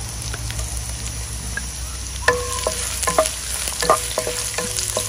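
Sliced ginger and shallots sizzling in hot oil in a granite-coated wok. From about two seconds in, a wooden spatula stirs them, scraping and knocking against the pan with short ringing clinks.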